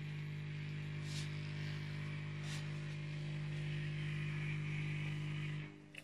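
Thomas washing vacuum cleaner's motor running with a steady hum and a faint hiss, with two faint clicks in the first half; the hum cuts off shortly before the end.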